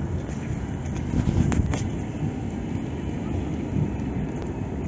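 Low, steady rumble of a low-floor city tram at a street stop, with wind on the microphone. Two brief high squeaks about a second and a half in.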